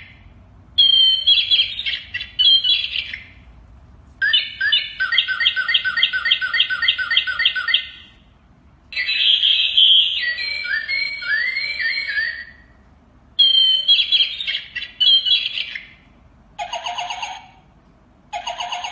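Electronic toy parrot playing recorded bird chirps and whistles in separate bursts of one to four seconds with short pauses between. One burst is a rapid, even trill of about four notes a second, and another has rising whistled glides.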